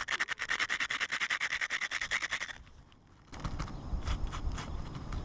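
Two pieces of asphalt shingle rubbed together like sandpaper, a fast even run of gritty scraping strokes, about ten a second, grinding granules off onto wet roofing cement to coat a patch. The strokes stop about two and a half seconds in, then after a brief pause come a few fainter, irregular scratches.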